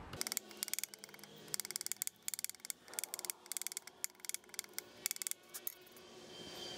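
Quick, light taps of a small ball-peen hammer on a rusty perforated steel starter screen resting on a vise's steel top, flattening the screen. Sped up, so the taps come in fast clusters; they stop about two-thirds of the way through.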